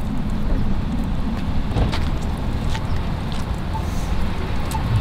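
Downtown street noise: a steady low rumble with a few faint clicks.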